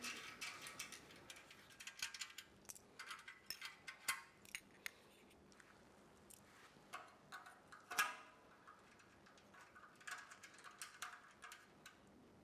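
Faint, scattered small metallic clicks and ticks of nuts and bolts being loosened and a steel fitting handled against a kamado grill's stainless steel band, with one louder click about eight seconds in.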